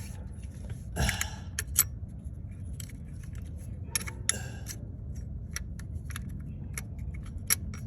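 Light metallic clicks and clinks of hand tools and small hardware, with brief scrapes about one second and about four seconds in.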